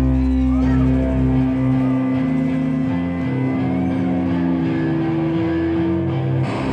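A live rock band plays an instrumental passage led by electric guitar, with held notes ringing. A deep low drone under it drops out about two seconds in.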